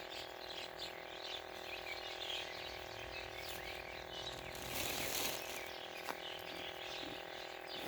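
Outdoor rural ambience with small birds chirping on and off and a steady hum of tones underneath, broken by a brief burst of noise about five seconds in.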